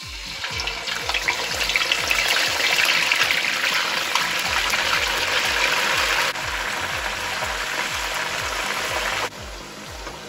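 Pieces of marinated pork belly sizzling and spattering in hot oil in a wok as they are dropped in to fry. The sizzle is loudest a few seconds in and drops abruptly in level twice, about halfway through and near the end.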